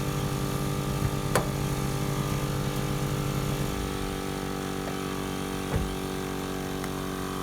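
Smittybilt 2781 portable 12-volt air compressor running steadily under load while pumping up a 40-inch tire, at about 26 PSI: a motor hum with several steady tones. Its lowest tone changes about halfway through, and two sharp clicks sound, about a second and a half in and near six seconds.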